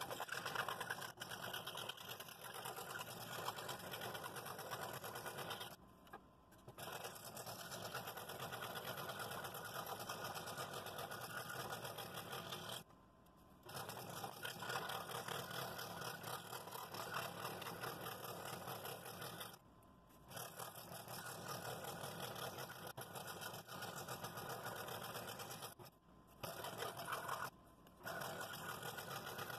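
Scroll saw running, its blade stroking up and down as it cuts curved pieces out of a wooden blank, with the cutting noise steady apart from a few brief breaks.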